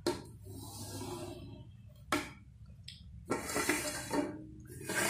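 Kitchen knife cutting thin set khandvi batter spread on a steel plate, its blade dragging and scraping against the metal. Two sharp ticks of the blade on the steel come about two seconds apart, then a longer scraping noise a little after three seconds.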